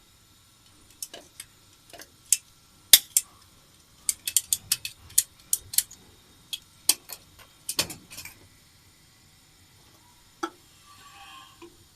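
Small hard objects clicking and clinking against each other in sharp, irregular knocks, thickest between about four and eight seconds in, with a short scraping sound near the end.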